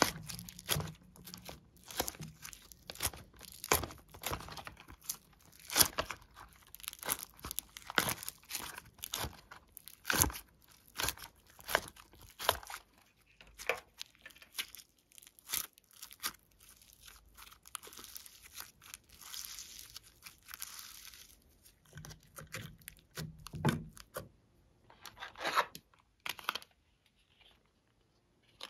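Crunchy foam-bead slime being peeled out of a silicone mold and squeezed by hand: a dense run of crackling, tearing pops that thins out near the end.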